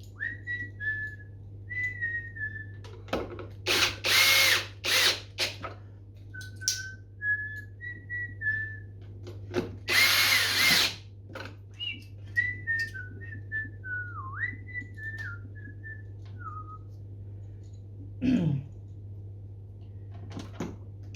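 A person whistling a wandering tune while a power screwdriver is run in short bursts to drive the casing screws, several quick runs a few seconds in and a longer run of about a second near the middle.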